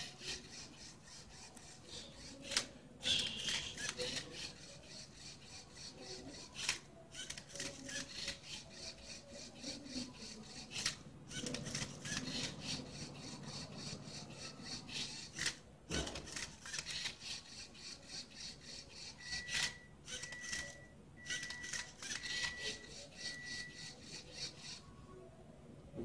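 LEGO Mindstorms Rubik's cube-solving robot turning and flipping a cube: plastic cube layers scraping and clicking as the motors twist them, in a quick uneven series of rasping strokes. About three quarters of the way through, five short high beeps sound in a row.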